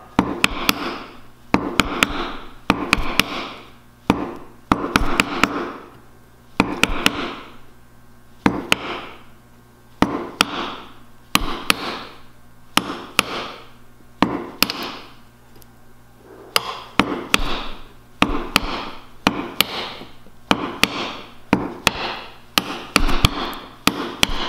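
A hammer striking a chisel again and again, each blow a sharp knock with a short ringing tail, about one a second and quickening in the second half, some blows in quick pairs. The chisel is chopping a row of stop cuts 1/16 to 1/8 inch apart across a hinge gain, so that tear-out stops at each cut when the waste is planed out.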